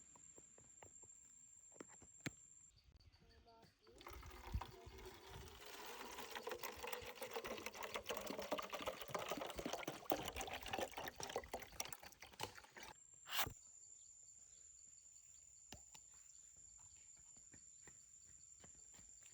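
Water being poured, splashing and trickling for about nine seconds, followed by one sharp knock.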